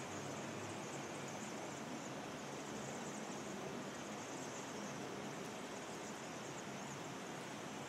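Steady outdoor city background noise with a constant faint, high twittering of many small birds: a flock of Vaux's swifts chipping as they circle.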